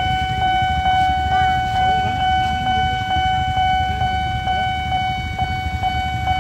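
Railway level-crossing warning alarm sounding while the barrier is down: one steady high electronic tone pulsing about two and a half times a second. Underneath it, waiting motorbike engines idle with a low rumble.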